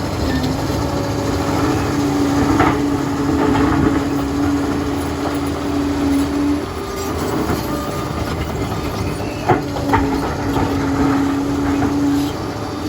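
Liebherr 746 crawler dozer working: its diesel running with the clank of steel tracks and a steady high squeal held for several seconds, twice, with a few sharp metal clanks between.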